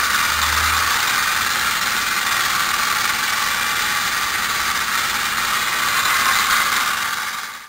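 Battery-operated tin toy diesel locomotive (a Japanese cable-controlled set of the late 1950s–early 1960s) running along its track, its small electric motor and gears giving a steady whirring that fades out near the end.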